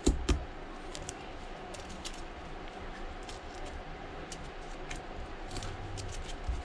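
Small hand tools clicking and scraping on an iPad mini 4's housing as it is prepped, with two sharper knocks right at the start and light scattered ticks after, over a faint steady hum.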